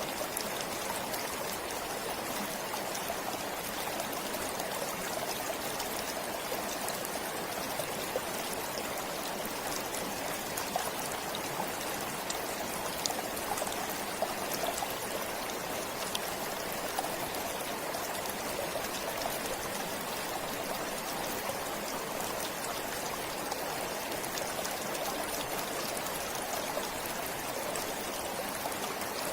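A forest stream flowing and trickling steadily, with a fuller water sound in the lower middle and small splashes scattered through it.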